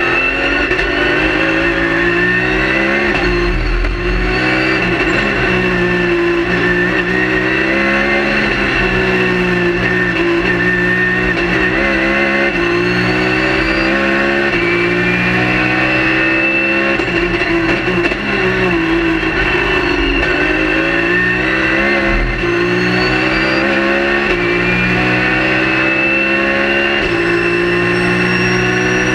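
Race car engine heard from inside the cockpit at speed on track, revving hard and climbing in pitch through the gears, each upshift dropping the pitch in a step. Several times the revs sweep down as the driver brakes and downshifts, then climb again.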